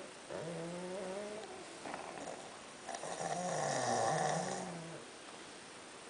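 Sleeping pugs snoring, the rattling snore of a flat-faced breed: a pitched snore from about half a second in lasting about a second, a short one near two seconds, then a longer, louder snore with a wavering pitch from about three to five seconds.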